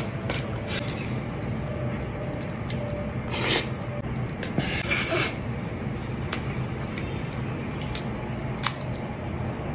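Eating and table-handling sounds: scattered short clicks and scrapes of a spoon and plastic food containers, with two brief hissy rustles a little past the middle.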